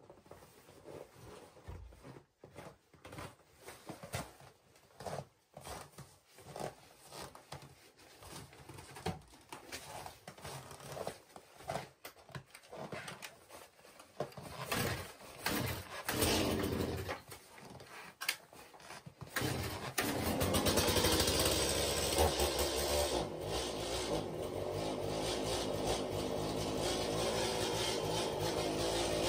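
Irregular knocks and shuffling of boots and boards, then a Stihl chainsaw is started about two-thirds of the way in and runs steadily.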